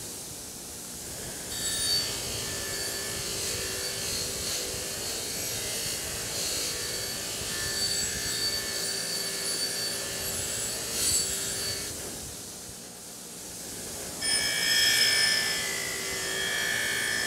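A bench grinder's wire wheel spins with a steady hum while a rusty double-bit axe head is pressed against it, scratching the rust off the steel. The scratching eases off for a couple of seconds about twelve seconds in, then comes back louder and harsher near the end.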